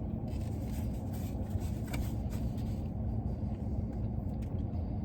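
Soft chewing and mouth clicks from someone eating a street taco, over a steady low rumble in the background.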